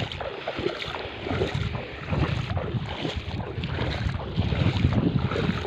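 Wind buffeting the microphone in uneven low gusts over open water, with water lapping and sloshing underneath.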